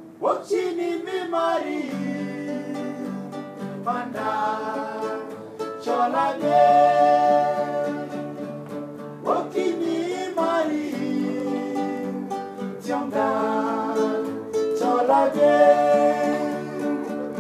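A man singing a song while strumming an acoustic guitar, in sung phrases of a few seconds each with short breaks between them.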